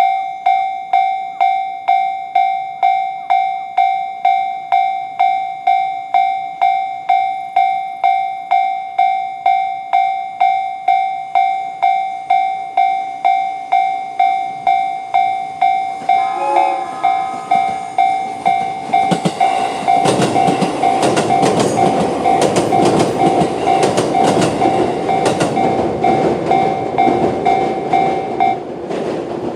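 A Japanese level crossing's electronic alarm, the JR standard sound, rings steadily at about two strokes a second, and a short horn sounds about 16 seconds in. From about 19 seconds an E653 series electric train passes, its wheels clattering rapidly over the rail joints. The alarm stops about a second before the end while the train is still going by.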